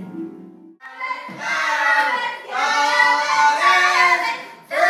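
A young voice singing loudly in long, drawn-out notes that bend up and down. It starts about a second in, after a brief dip.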